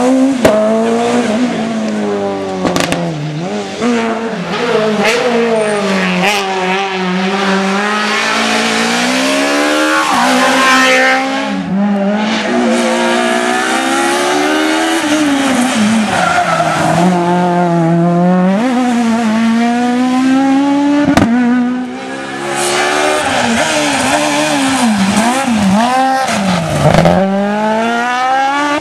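Super 1600 rally cars' high-revving 1.6-litre four-cylinder engines driven flat out, the pitch climbing and dropping again and again through gear changes and lifts, with sharp cracks now and then.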